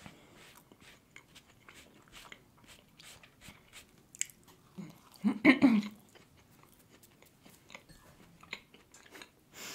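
Close-miked chewing of a soft doughnut: quiet, wet mouth clicks and chews throughout, with one brief, louder vocal sound about five seconds in.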